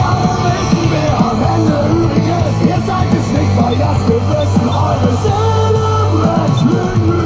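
Music with a singing voice, playing on the tractor cab's radio.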